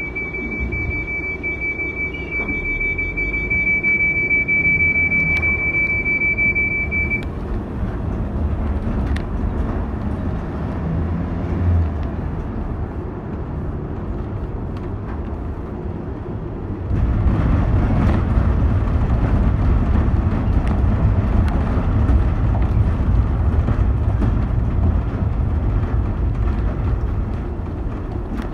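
A car driving on rain-wet roads, heard from inside the cabin: a steady low rumble of engine and road, with a steady high tone over it for the first several seconds. About seventeen seconds in, the road noise grows louder and hissier as the tyres run over the wet road.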